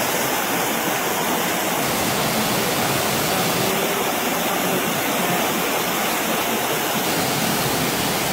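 Steady rush of a torrential downpour and muddy floodwater running down a street.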